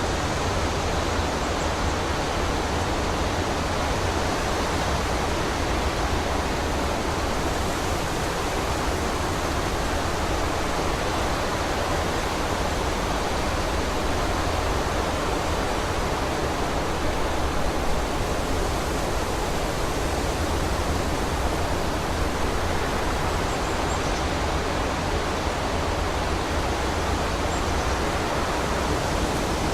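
Steady wind blowing through a forest, a constant full rushing noise with no gusts or breaks.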